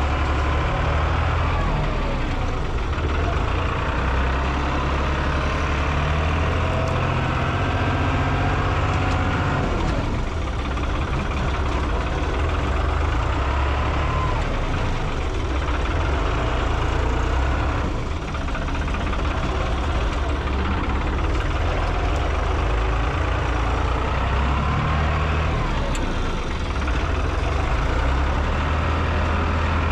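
A heavy engine running steadily, with a few faint rising and falling squeals over it.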